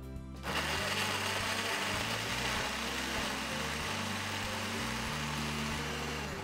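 Countertop blender switched on about half a second in, its motor and blades running steadily as they puree cooked cauliflower soup, then cutting off at the end.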